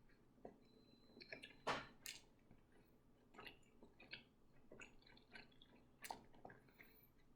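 Faint mouth sounds of a person chewing sushi: scattered soft smacks and clicks, strongest about two seconds in and again near six seconds.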